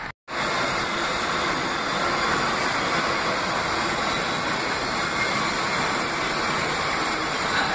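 R62-series New York City subway train approaching through the tunnel, a steady loud rumble of wheels on rail. A short drop-out just after the start.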